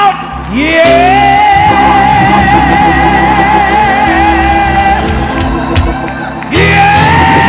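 Church praise music: one long high note is held with a slight wavering, sung, from about half a second in to about five seconds, over a stepping bass line. A new held note begins near the end.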